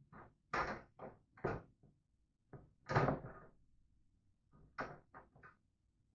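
Metal trike basket parts knocking and rattling together as they are handled and lined up to slide a pin through: a run of short knocks, the loudest about three seconds in, and a quick cluster of three or four near the end.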